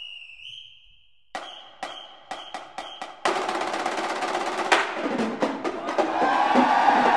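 A referee's whistle sounds once, about a second long, as the play is blown dead. A few sharp snare-drum strikes follow, then from about three seconds in the drums break into a fast, continuous drum roll with beats.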